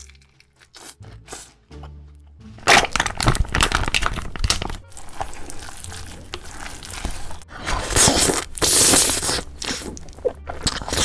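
Close-miked eating sounds over background music: loud crunching, tearing bites and chewing start about three seconds in, followed by a long hissing slurp of spicy noodles near the end.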